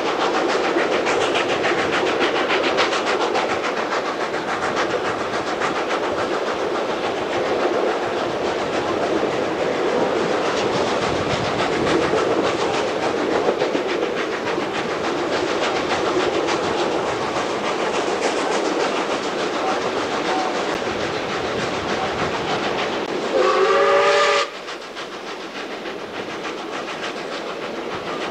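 Steam-hauled passenger train running, heard from a carriage window: a steady rush of wheel and rail noise with clickety-clack. Near the end, the ex-South Australian Railways 520-class steam locomotive gives one short whistle blast of about a second, after which the running noise is quieter.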